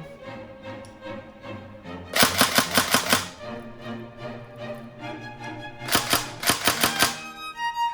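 Tokyo Marui MP5 airsoft gun firing two short full-auto bursts of rapid snapping shots, each about a second long, with the second burst a few seconds after the first. Background music plays underneath.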